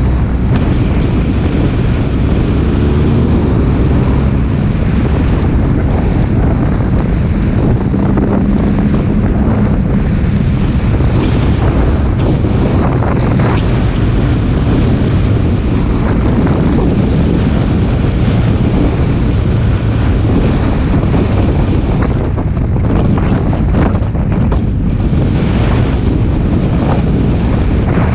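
Wind buffeting the microphone of a moving motorcycle at road speed, loud and steady, with a low engine drone and road noise beneath it.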